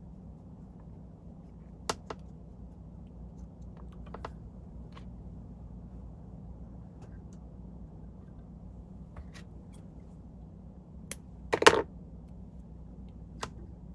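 Scattered light clicks and taps of hands working fly-tying tools (bobbin holder, thread and vise) while tying a teaser, with a short louder clatter near the end, over a low steady hum.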